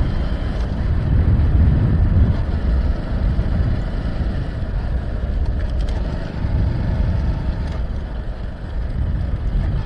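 Motorcycle riding at steady speed: the engine running with a constant low rumble of wind and road noise on the handlebar-mounted microphone.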